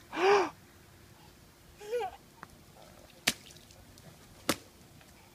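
Rubber rain boots stomping in a shallow puddle on wet asphalt: sharp slapping splashes, two of them about a second apart in the second half. A toddler gives a short loud squeal at the start and a brief babble about two seconds in.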